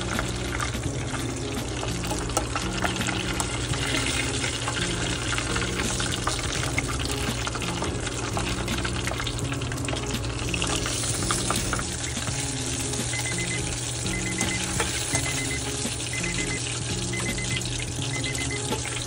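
Chicken nuggets deep-frying in a saucepan of hot oil: a steady, dense sizzle with fine crackling as the oil bubbles around the breading.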